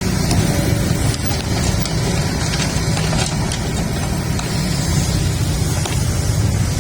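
Excavator's diesel engine running steadily with a low rumble, with a few faint clicks or knocks mixed in.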